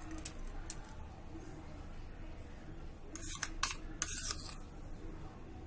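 Metal spoon scooping thick whipped coffee out of a stainless steel bowl: a few light clinks, then three short scrapes against the bowl a little past the middle.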